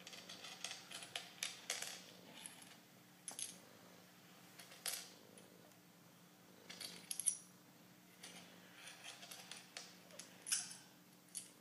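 Small coins clinking and clicking together in short clusters, played through a laptop's small speakers, over a faint steady hum.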